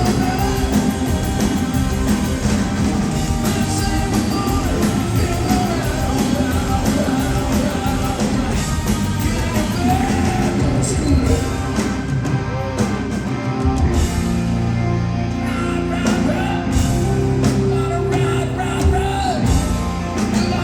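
Hard rock band playing live, with a singer over guitar, bass and drums.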